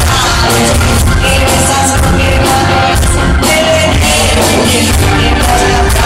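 Live rock band playing loudly, with a singer over guitar and a steady drum beat.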